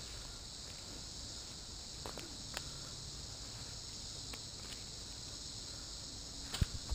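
A steady, high-pitched drone of insects in the woods, with a few footsteps and snaps on the leafy forest floor; the loudest knock comes near the end.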